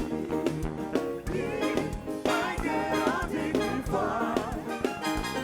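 Live gospel band playing with drums and keyboard, with singers joining in wavering vocal runs after about a second.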